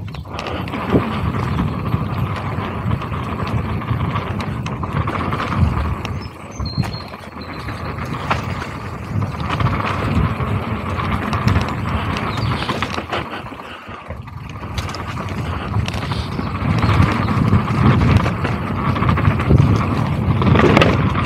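Mountain bike descending a dry dirt singletrack: tyres rolling over dirt and roots, with the bike rattling and knocking over the bumps. It goes briefly quieter about two-thirds of the way through.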